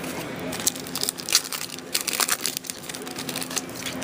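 Trading cards being handled and flipped through, a quick run of crisp clicks and rustles.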